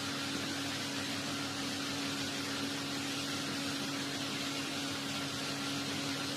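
A steady hum over an even hiss, constant throughout with no other events.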